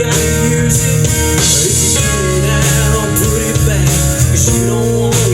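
A band playing a country rock song with guitars and a drum kit, in a stretch without clear sung words.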